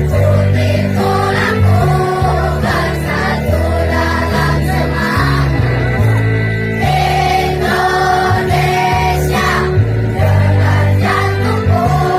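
Student choir singing together over an electric keyboard accompaniment holding steady bass chords.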